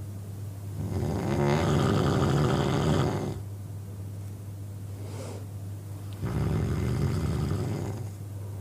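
A man snoring: two long, loud rattling snores about five seconds apart, each lasting about two seconds, with quieter breathing between them.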